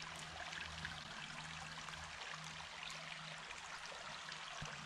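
Creek water flowing and trickling, faint and steady.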